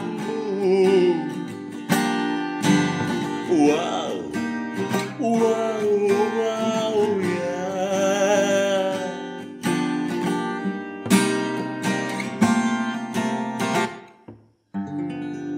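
A song's closing bars: a singer's wordless, wavering 'oh, wow-wow… yeah' over chords Am7, Bm7 and E7 at about 115 beats a minute. The playing stops just before the end, then one last chord rings out.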